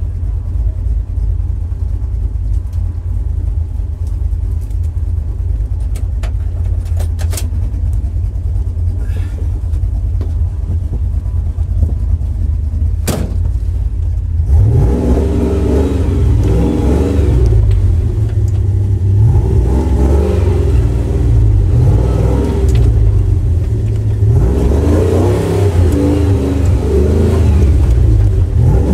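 A truck's engine, heard from inside the cab, idling steadily with a few sharp clicks, one of them louder shortly before halfway. From about halfway it is revved hard in repeated rising and falling surges, working under load as the truck tries to pull itself out of deep mud.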